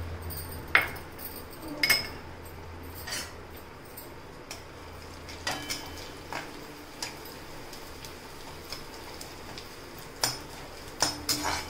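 Metal slotted spoon scraping and clinking against a steel kadhai, in irregular scattered strokes, as gond (edible gum) is stirred and fried in hot ghee, under a steady low hum.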